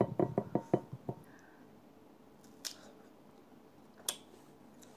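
Close eating sounds of firm, half-ripe mango being bitten and chewed: a quick run of crisp clicks in the first second, then two single clicks later on.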